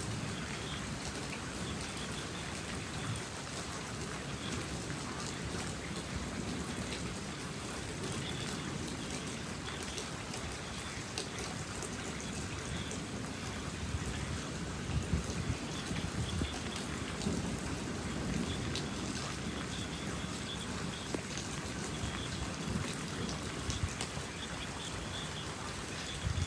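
Steady rain falling, with many small drop hits ticking on a surface.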